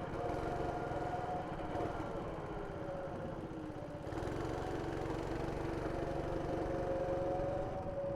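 Go-kart engine running under way, a steady small-engine drone whose pitch sags a little about three seconds in and picks up again at four seconds.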